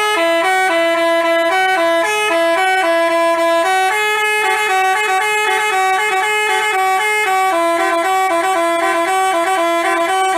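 Multi-tone Basuri 'telolet' bus horn playing a tune of quick, stepped notes, loud and unbroken. The melody shifts to a different run of notes about four seconds in and again near the end.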